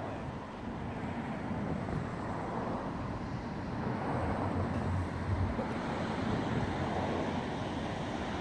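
Steady rushing outdoor noise of wind across the microphone and surf on the beach below. A low rumble swells a little about halfway through.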